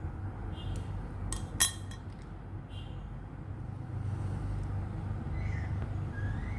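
A few small, sharp metallic clicks and taps, the sharpest about a second and a half in, as a small ball bearing is pressed into a fishing reel's handle knob. A steady low rumble runs underneath.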